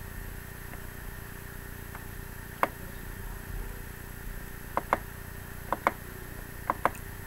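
Computer mouse button clicking: a few sharp single clicks and quick pairs, over a steady background hum.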